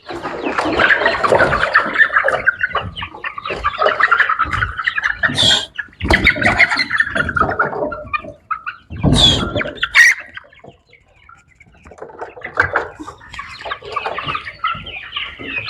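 A flock of young chickens peeping and cheeping together, with a knock about nine seconds in and a sharp click just after.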